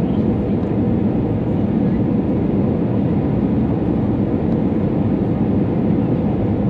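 Steady engine and airflow noise inside the cabin of an Airbus A320neo on approach, heard from a window seat beside the wing-mounted engine. It is a deep, even rumble with no changes.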